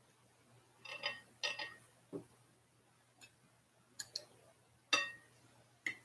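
Cutlery clinking against a plate in a series of light, ringing taps, about seven in all, the loudest about five seconds in, with one duller knock among them.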